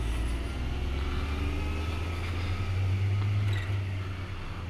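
Motorcycle engine running steadily under way, a little louder about three seconds in, over a haze of wind and road noise.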